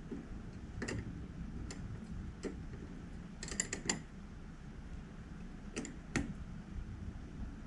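Scattered sharp metallic clicks and ticks of hand tools and small hardware as a spring washer and nut are fitted to secure a windshield wiper motor, with a quick run of several clicks about halfway through.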